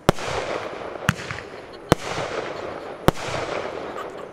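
Aerial fireworks: four sharp bangs about a second apart, each trailed by a fading crackling hiss.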